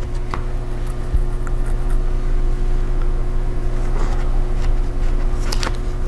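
A laptop battery pack being worked into the chassis of an open ASUS TUF gaming laptop: light plastic clicks and taps, with a few sharper clicks near the end as it goes in, over a steady low hum.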